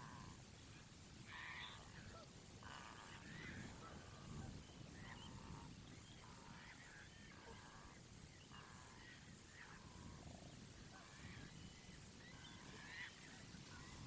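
Waterbirds calling over and over, a short faint call about every second, over a low background rumble.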